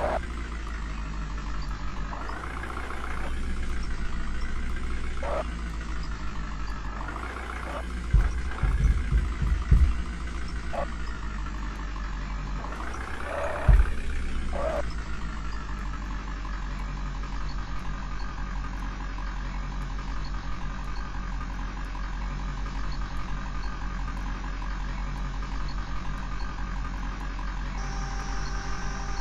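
JCB 3DX backhoe loader's diesel engine running, revving up several times in the first half amid a few heavy knocks, then settling to a steady idle.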